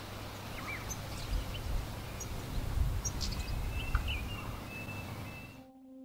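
European goldfinch calling: scattered short, high chirps and quick sweeps over a low rumble, stopping abruptly near the end.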